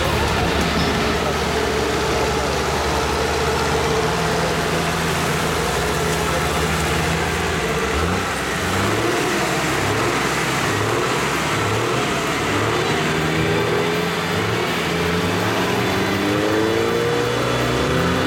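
Off-road vehicle's engine working under load, its pitch rising and falling with repeated revs and climbing again near the end.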